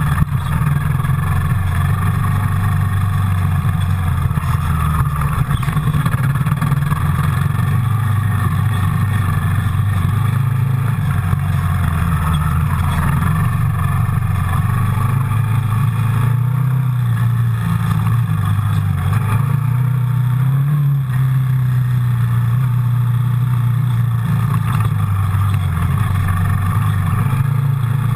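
Yamaha Raptor quad bike's single-cylinder engine running steadily under way, its pitch rising and falling a little with the throttle.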